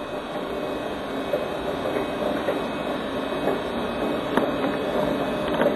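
Recorded real-railroad sounds playing steadily from a hi-fi, with a few light clicks from the HO-scale model train running on the layout's track.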